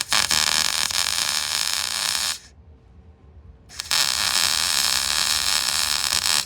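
MIG welder laying two short weld runs on the car's steel sill panel, each a steady crackling buzz of about two and a half seconds, with a pause of about a second and a half between them.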